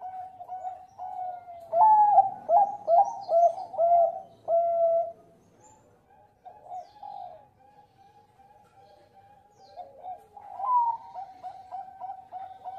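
Zebra dove (Bangkok perkutut) cooing in rapid strings of short notes. The song is loudest from about two seconds in to about five seconds, drops to softer cooing, and picks up again near the end.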